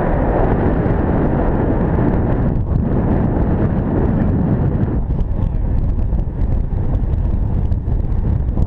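Wind buffeting the microphone: a loud, steady rumble of gusty wind that thins out a little about halfway through.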